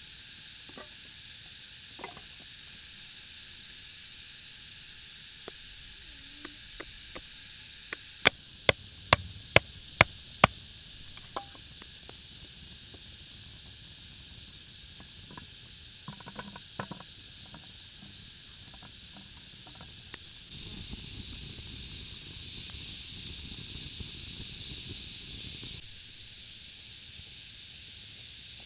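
Campsite work sounds over a steady high hiss: a quick run of about seven sharp wooden knocks, about three a second, comes about eight seconds in, followed a few seconds later by a handful of lighter clicks. Near the end a rustling noise rises for about five seconds, then stops suddenly.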